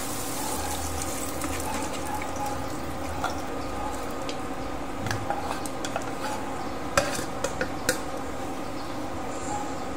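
Metal tongs stirring diced potatoes, carrots and onions in a pan, scraping and clicking against it over a steady frying sizzle, with a few sharper clinks about seven to eight seconds in.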